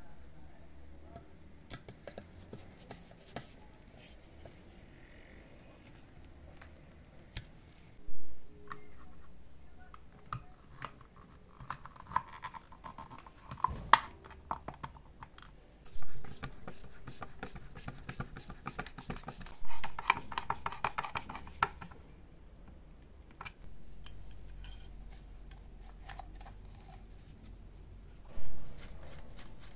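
Hand work on small metal parts: scraping, rubbing and scattered small clicks, with a few louder short knocks or swells spread through.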